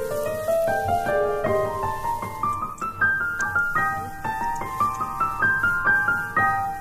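Background piano music: a melody of single notes climbing upward in steps, starting over about halfway through.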